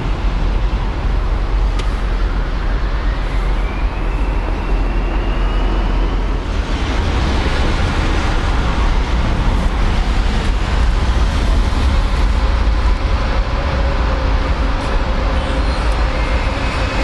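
Jet engine noise at an airport runway: a Boeing 747's four engines at takeoff thrust, with a whine rising steadily in pitch over the first six seconds over a deep rumble. About six and a half seconds in the sound changes abruptly to a Boeing 777 freighter's two GE90 engines running loud on the runway.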